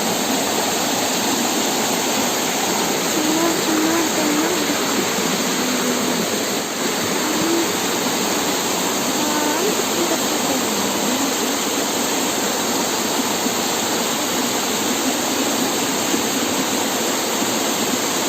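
Waterfall pouring over rocks: a steady rush of water.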